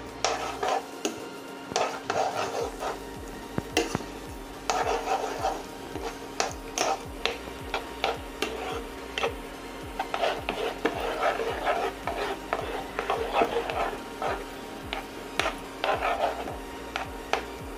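A spoon stirring and scraping thick moong dal halwa around a nonstick pan, in irregular scrapes and light taps against the pan, over a faint steady hum.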